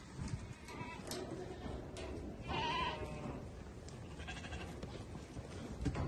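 Sheep bleating: one clear bleat about halfway through, then a fainter one shortly after, over a low rumble.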